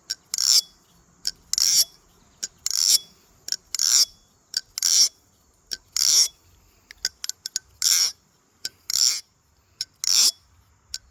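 Thomas balisong trainer being flipped: its blade zings through the handles about once a second, sounding like a laser gun, with small clicks of the handles between.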